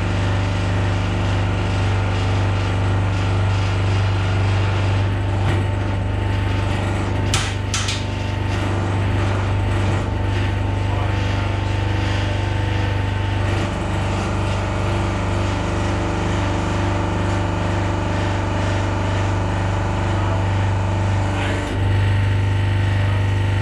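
Hydraulic power unit of a vintage wool press running steadily, with a strong low hum, while the rebuilt rams are cycled up and down to work the air out of the system. There are two sharp clicks a little over seven seconds in, and the note dips briefly and changes near the end.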